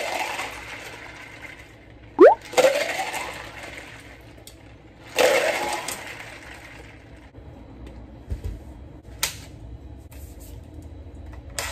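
Iced coffee poured from one plastic cup into another to mix the syrup through, liquid and ice splashing in three pours. There is a short rising squeak about two seconds in.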